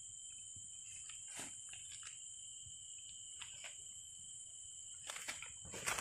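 A steady, high-pitched insect drone at two pitches, with a few scattered crunches of footsteps in dry leaf litter that come closer together near the end.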